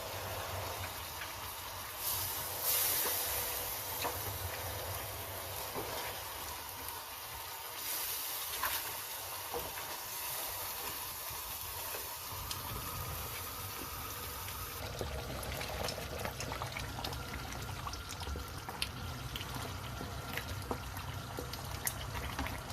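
Chicken curry simmering and sizzling in a pot, with a steady hiss. There are two louder hissing surges in the first half, and small clicks later on.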